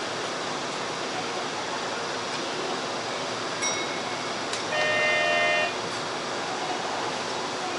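Steady noise of a train standing at a station platform. There is a faint short ping about three and a half seconds in, then an electronic chime of several steady tones lasting about a second.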